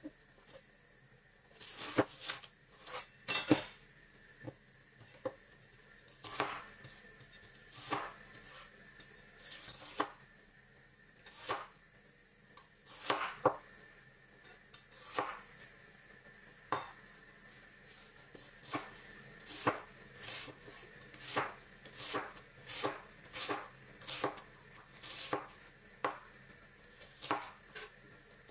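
A wide-bladed chef's knife chopping an onion on a bamboo cutting board: a string of sharp knocks of the blade on the board, irregular at first, then steadier at about one or two a second as the onion is diced.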